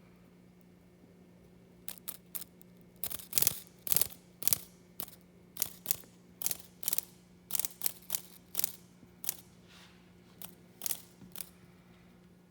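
Irregular series of short, sharp rattling bursts, about twenty over nine seconds and loudest a couple of seconds in: a cicada's wings fluttering as it struggles against a praying mantis. A faint steady low hum runs underneath.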